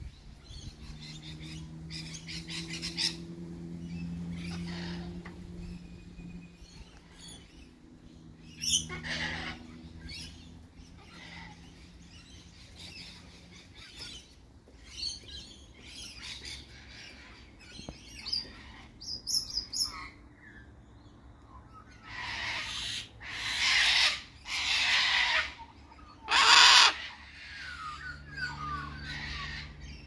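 Sulphur-crested cockatoo calling, with short chirps and calls scattered through and a run of four loud, harsh screeches about three quarters of the way through. A low steady hum sits under the first half.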